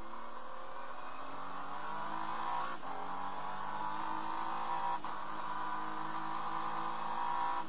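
Acura NSX GT3 race car's twin-turbo V6 accelerating hard, heard from inside the cockpit. It climbs in pitch through the gears, with quick upshifts about three seconds in, about five seconds in, and again at the very end.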